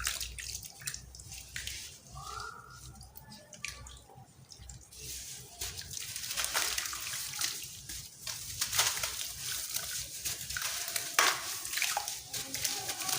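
Crunchy sand cement being crumbled, making gritty crunching and crackling in irregular bursts. There is a quieter spell from about two to five seconds in.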